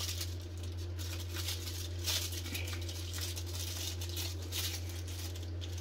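Aluminium foil crinkling and rustling in irregular scratches as hands twist a rolled sheet into a cone, over a steady low hum.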